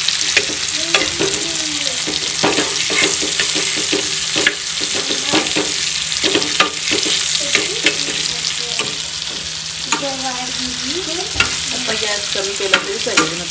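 Masala-marinated fish pieces shallow-frying in hot oil on a flat tawa, sizzling steadily, with a metal spatula scraping and clicking against the pan many times as the pieces are turned.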